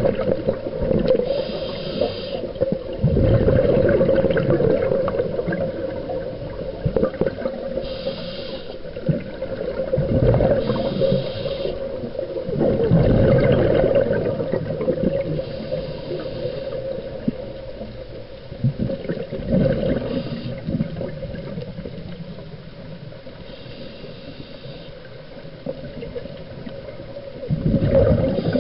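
Wind buffeting the microphone over the rush of water along a sailing yacht's hull, swelling and easing in gusts.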